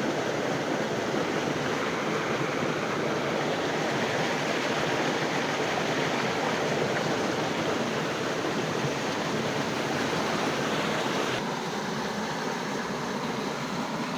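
River water rushing steadily, an even hiss of flowing water that gets a little softer near the end.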